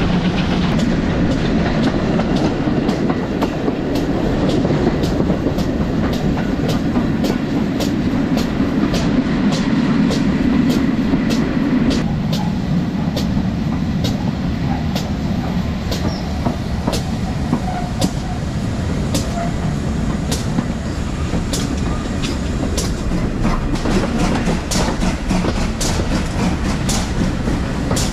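Steam locomotive running along the line, heard from its side: a steady rumble with wheels clicking over the rail joints at a regular rhythm. The deeper part of the rumble drops away about twelve seconds in.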